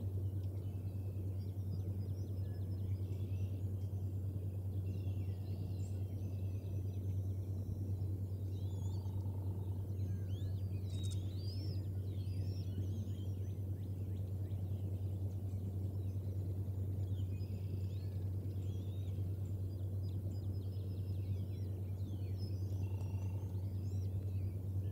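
A steady low hum under many short, high bird chirps and calls scattered throughout.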